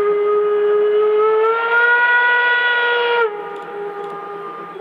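Steam locomotive 64 518's steam whistle blowing one long blast. About a second and a half in it rises slightly in pitch and gets louder. It then drops to a quieter, lower tone for the last second and a half.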